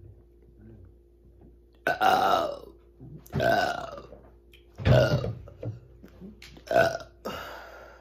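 A woman burping on command: five loud burps in quick succession starting about two seconds in, the first two drawn out and the last three shorter.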